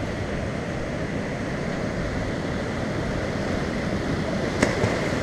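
Steady rush of fast, churning river water pouring over and below a dam. A brief faint tap near the end.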